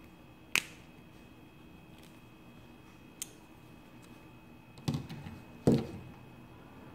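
Small metal parts handled by hand, a ball bearing and a metal shaft. There is one sharp metallic click about half a second in and a faint tick, then two louder knocks close together near the end.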